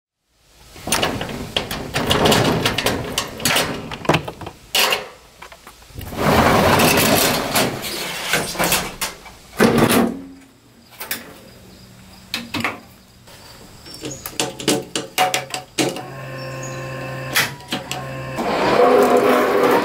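Metal clanking and rattling as a padlocked barrel bolt on a roll-up shed door is worked open and the door goes up, then scattered clicks. Near the end, a steady low electric hum as the key switch of an electric-converted 1989 MTD Ranch King garden tractor is turned on, and its electric drive starts to whir.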